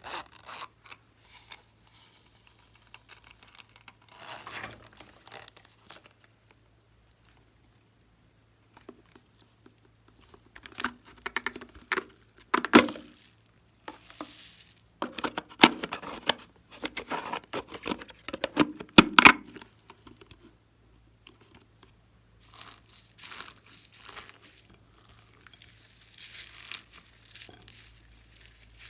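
Glossy slime being squished and stretched by hand, giving sticky crackling and popping sounds in irregular bursts. The bursts are sparse at first, dense and loudest through the middle, and softer again near the end.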